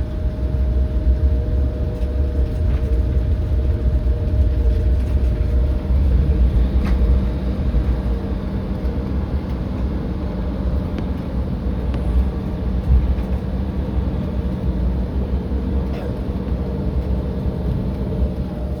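Cabin noise of an Embraer 175 taxiing in after landing: a steady low rumble from the idling engines and the airframe, with a faint steady whine that fades out about six seconds in, and a few light clicks.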